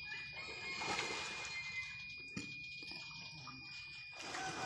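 Running water with a noisy rush, under a steady high-pitched whine; a single sharp knock about two and a half seconds in.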